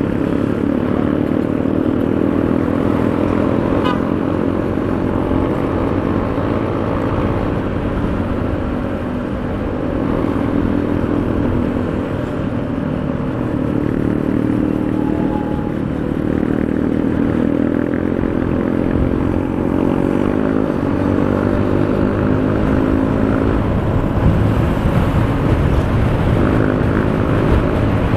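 Honda Beat 110 FI scooter's small single-cylinder four-stroke engine running while riding in traffic, its pitch shifting as the rider speeds up and eases off about two-thirds of the way through.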